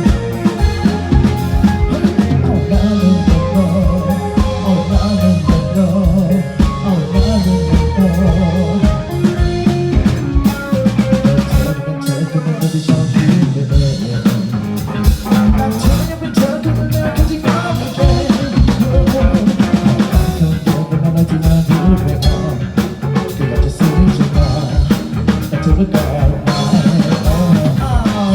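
Band music played live, an instrumental passage with the drum kit to the fore: a steady beat with snare and rimshots. About halfway through, the bass drops out for a second or so, then comes back in.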